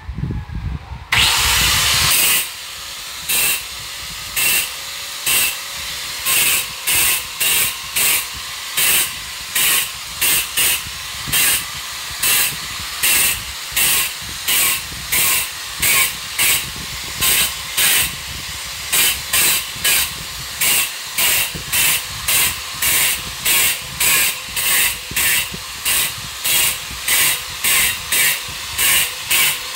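A corded power tool working on a wall starts about a second in and runs with a harsh hiss, surging louder about twice a second.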